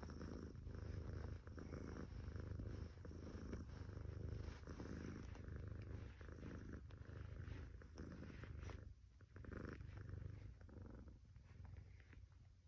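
Domestic cat purring in a steady, regular pulsing rhythm, weakening and breaking up in the last few seconds.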